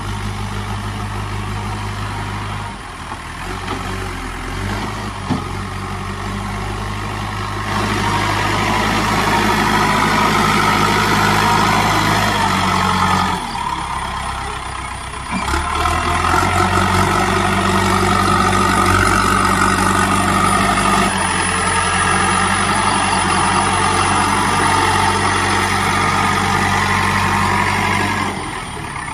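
Kirloskar diesel engine of a JCB 3DX backhoe loader running under working load. It revs up and gets louder about eight seconds in, eases off briefly around halfway, then revs up again and settles back near the end.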